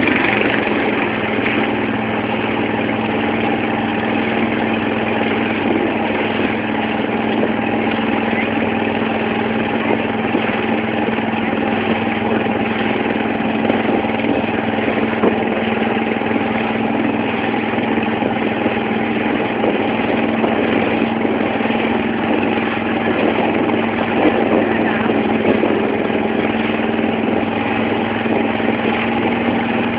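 Engine of a wooden banka motorboat running steadily under way at an even speed, with water splashing along the hull.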